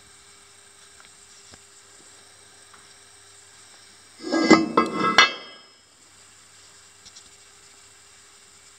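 A machined steel trunk guide being tipped over and set down on a T-slotted machine table: a short clatter of metal scraping and clinking on metal, lasting about a second and a half, about halfway through. A faint steady hum runs underneath.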